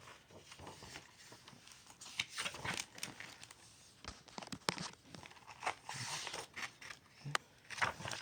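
A paper picture book being handled: irregular page rustling with scattered light clicks and taps.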